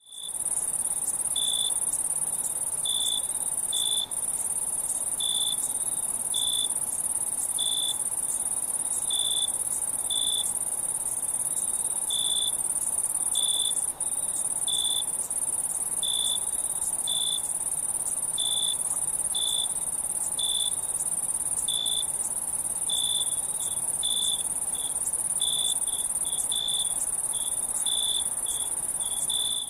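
Night insect chorus: a steady, very high-pitched trill with a separate cricket chirping over it, about once a second at first and faster, in quick runs, near the end.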